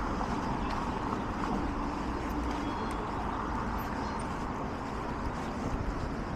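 Steady road traffic noise from cars on a wide multi-lane road, with a low engine hum fading out about three seconds in.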